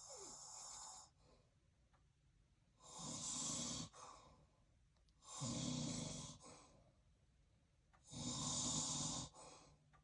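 A man with sleep apnea snoring in his sleep: three snores about a second long each, roughly two and a half seconds apart, with quiet breaths between, and the tail of another snore right at the start.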